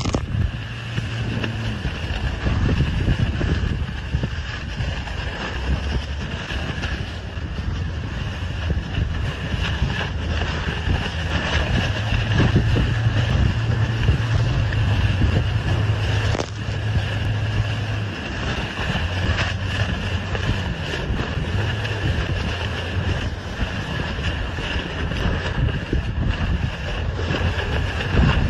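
Strong wind buffeting the microphone over the rush of water from a sailing dinghy planing through rough chop, with a low steady motor drone underneath.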